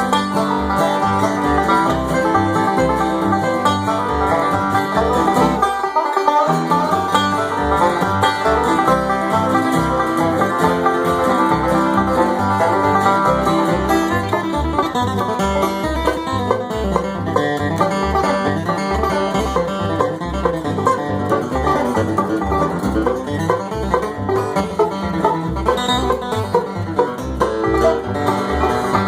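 Bluegrass instrumental with a banjo picking the lead over guitar, played at a steady driving tempo.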